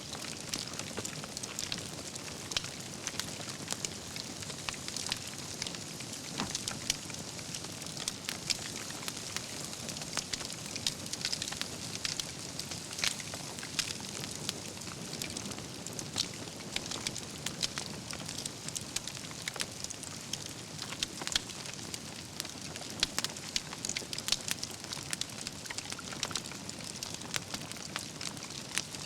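Wood campfire burning, with a steady hiss under frequent sharp crackles and pops from the burning logs.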